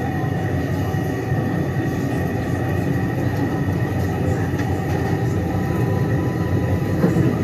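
Steady rumble of an underground train running, with a thin, steady high whine over it.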